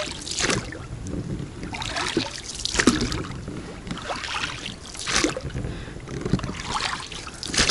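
Wooden oars of an inflatable boat being rowed, dipping and pulling through the water in regular strokes about once every second or so.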